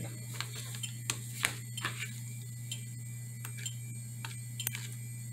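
Faint, irregular small clicks over a steady low electrical hum, as the magnet on the RC boat's servo arm is turned.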